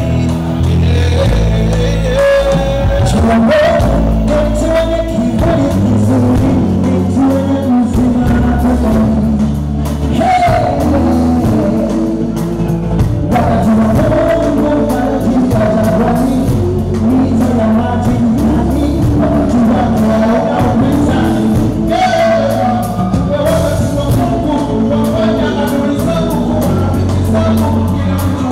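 Live gospel music: male lead singers and backing vocalists singing over a band, with a bass line moving beneath them.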